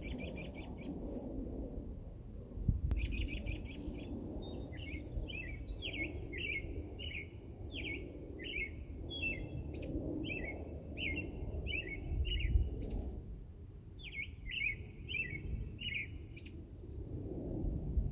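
A bird singing: quick bursts of rapid chirps give way to a long run of repeated down-slurred whistled notes, about two a second, with a short break before the run resumes. Low wind rumble sits underneath.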